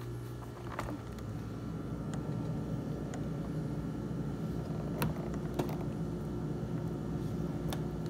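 Refrigerator running with a steady low mechanical hum that gets a little louder after about a second, with four light sharp clicks.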